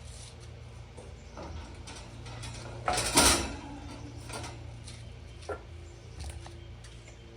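Knocks and a louder scraping clatter of metal being handled, the loudest about three seconds in, over a steady low hum.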